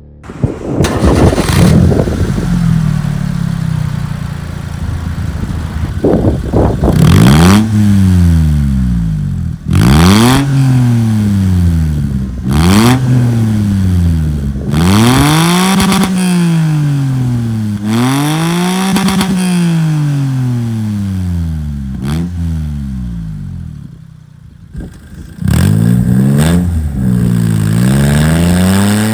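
A small engine starts up, idles for a few seconds, then is revved over and over, each rev climbing and falling back in pitch every two to three seconds; it drops back briefly near the end before revving again.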